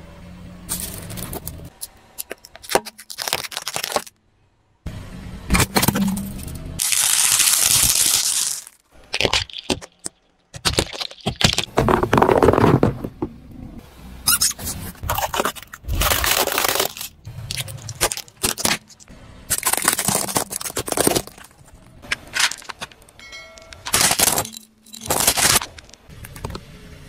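A run of cracks, crunches and scrapes as a car tyre rolls over and crushes plastic objects: felt-tip pens, rubber ducks, a plate of gumballs. A loud hissing rush comes about seven seconds in.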